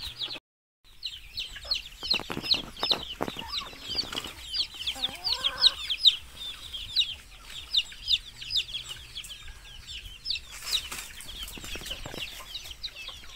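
Native chicks peeping nonstop, a dense chorus of short, high, falling cheeps, with a hen clucking among them. Wooden knocks and rattles from boards and the bamboo coop being handled come in clusters about two to four seconds in and again near the end.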